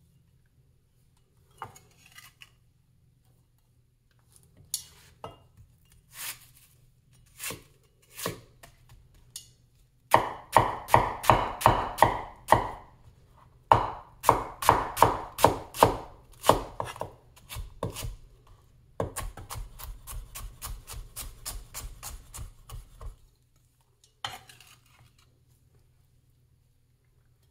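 Large vintage Chinese cleaver chopping red onion on a wooden cutting board, each stroke a sharp knock of the blade on the wood. A few scattered cuts come first, then, about ten seconds in, quick runs of chops at roughly five a second with short pauses, ending in a faster, lighter run that stops near the end.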